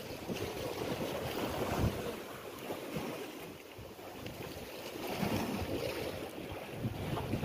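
Wind buffeting the microphone in uneven gusts over the wash of sea waves against the rocks.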